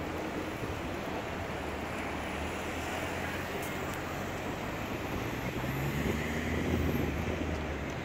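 Steady street traffic noise from motor vehicles, swelling for a moment about six to seven seconds in as an engine rises in pitch.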